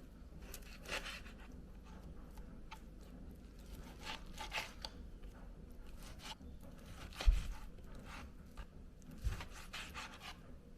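Knife cutting through chicken on a cutting board: several short slicing and scraping strokes, with a sharp knock of the knife on the board about seven seconds in, the loudest sound, and a softer one near the end.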